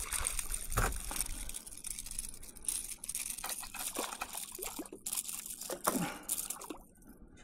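A small hooked snook thrashing and splashing at the water's surface in a run of short, irregular splashes, which die down near the end.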